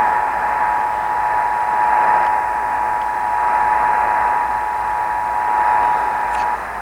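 Emergency Alert System two-tone attention signal (853 and 960 Hz) received over a radio broadcast, a steady dual tone over radio static hiss. It cuts off suddenly near the end, leaving only the static.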